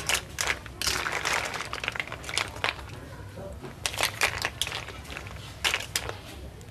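Snail shells clacking against one another and against a steel wok as a wire skimmer stirs them through boiling water, in several quick runs of clicks.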